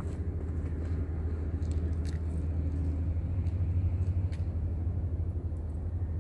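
A steady low engine-like hum, running at an even pitch.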